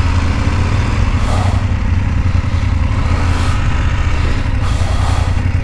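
BMW F850GS Adventure's parallel-twin engine running steadily at low speed as the motorcycle rolls slowly, a loud low rumble.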